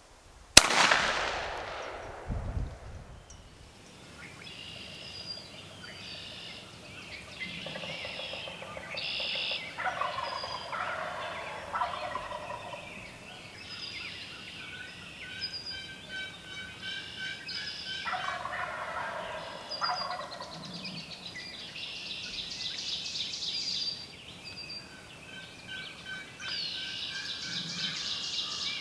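A single loud shotgun shot about half a second in, echoing away over a couple of seconds. After it, wild turkeys gobble repeatedly among songbirds calling.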